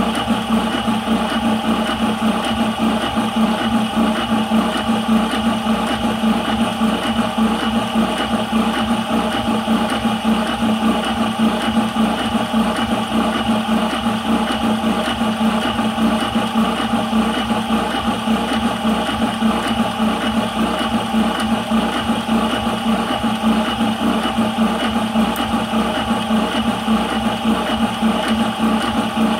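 High-pressure PCP air compressor running steadily with an even hum while it fills a 180cc airgun air cylinder, which stands at about 150 bar and rising.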